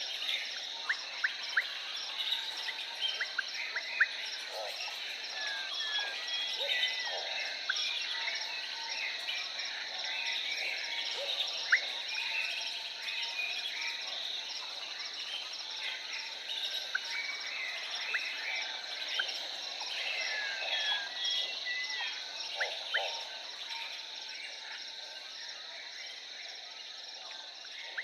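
Jungle ambience: a steady high insect chorus with a fast, even pulsing trill above it, and many short bird chirps and whistled glides scattered over it, with a few lower calls now and then.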